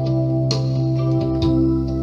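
Electronic keyboard music: a slow melody with a few notes struck over a held low chord.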